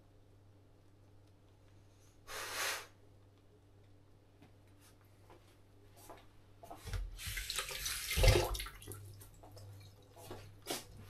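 Water running in two spells: briefly about two seconds in, then louder for about two seconds from seven seconds in, with a knock near the end of the second spell and a few small clicks around it.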